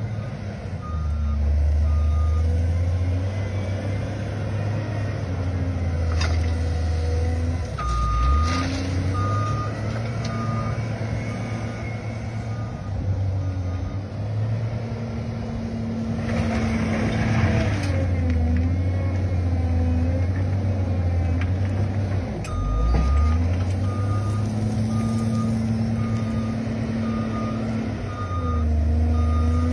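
Case wheel loader's diesel engine running and revving up and down as it works, with its reversing alarm sounding in three runs of steady, evenly spaced beeps, about two a second. About sixteen seconds in there is a brief rushing noise.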